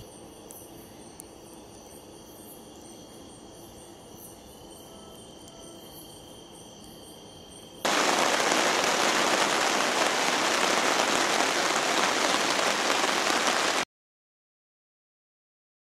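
Night insects such as crickets chirping steadily, then about 8 s in a sudden change to a loud campfire burning with a dense crackle for about six seconds, which cuts off abruptly to silence.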